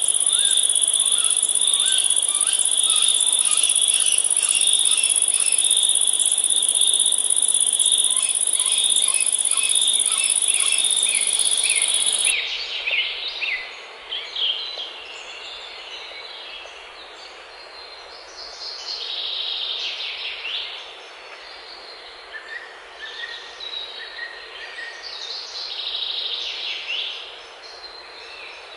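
A loud, steady high-pitched insect trill, typical of crickets, with birds chirping over it; it cuts off abruptly about twelve seconds in. What follows is quieter woodland ambience with two bursts of bird song.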